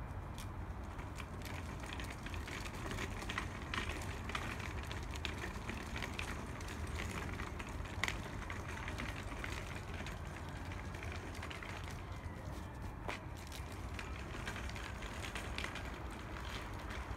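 Shopping trolley being wheeled over pavement: a steady low rumble from the rolling wheels, with many scattered clicks and rattles from the wheels and frame.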